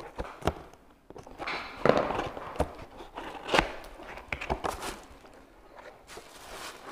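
Packaging being handled as a boxed casserole is opened: scattered knocks and clicks with bursts of rustling.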